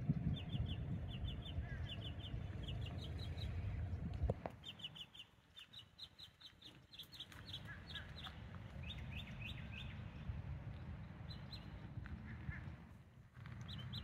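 Songbirds chirping: short high notes in quick groups of three or four, repeated again and again. A low rumble runs underneath and cuts off suddenly about four seconds in.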